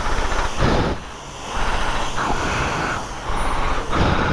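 High-pressure jet-wash lance spraying shampoo onto a motorcycle's rear wheel and tyre: a loud hiss and splatter of water that swells and eases about three times as the spray is moved.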